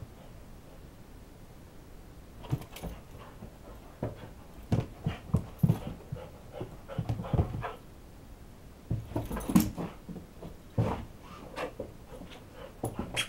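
Siberian husky panting and moving about on carpeted stairs, with irregular clusters of soft thumps from its paws and a ball dropping on the steps.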